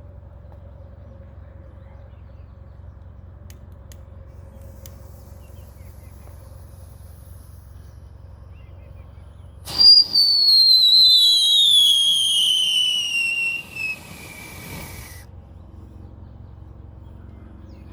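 A whistling firework screeching: a loud shrill whistle starts abruptly about ten seconds in, falls steadily in pitch for about five seconds, then cuts off. Before it, only a faint low hum.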